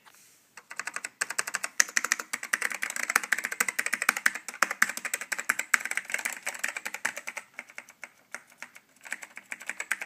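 Fast typing on a Dell AT-101W keyboard with black Alps switches: a dense run of sharp key clicks. It thins out briefly about seven and a half seconds in, then picks up again.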